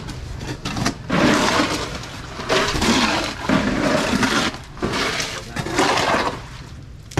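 Wet concrete mix of cement, sand and gravel being poured, a rushing, sloshing noise in three long surges of one and a half to two seconds each.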